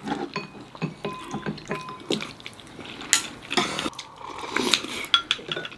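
Eating at the table: chopsticks and a spoon clinking against bowls, with a few short ringing clinks, and wet liquid sounds from the soup being spooned and eaten.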